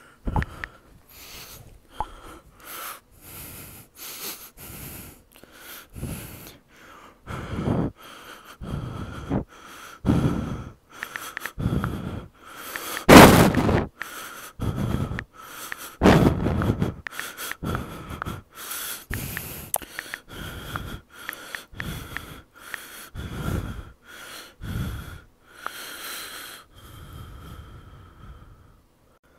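A person's heavy, wheezing breathing: rapid breaths about one a second, the loudest about halfway through, with a faint steady whistle underneath.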